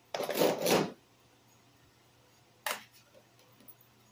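One pull on the recoil starter of a Stihl KM130R two-stroke powerhead, a rasping whir under a second long, without the engine catching. A short knock follows near three seconds in.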